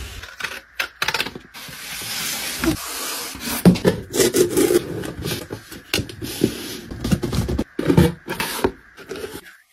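Hands working a corrugated cardboard box: the cardboard rubs and scrapes as the flaps are folded, and packing tape is pulled from its roll and smoothed onto the box. Irregular short taps and clicks come through the whole time.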